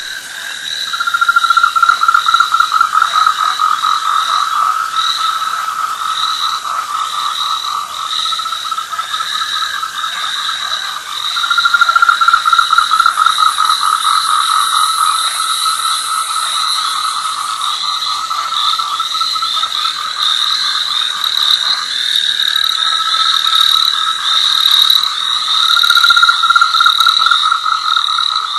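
Night chorus of frogs giving long, rapidly pulsing trills that overlap and start up again every several seconds, with a steady higher trilling behind them.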